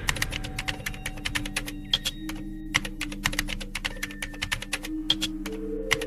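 Rapid, irregular typing on a computer keyboard, key clicks several a second, over a low steady drone.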